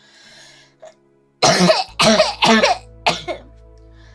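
A young woman coughing four times in quick succession, starting about a second and a half in, after a faint breath in.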